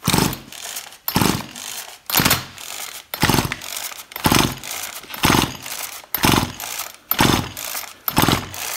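Two-stroke chainsaw engine being cranked by its pull-cord recoil starter with the spark plug out, turning over without firing, about once a second for nine pulls. It is a compression test with a gauge in the plug hole, which reads about 120 psi: good compression.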